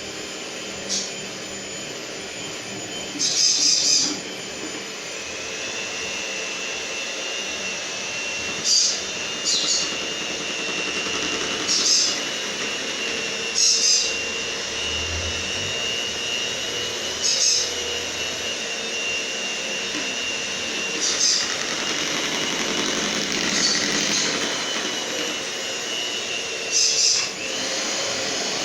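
Electric kitchen mixer running steadily in cake batter, its whine stepping up slightly about five seconds in, with short high-pitched scrapes every few seconds.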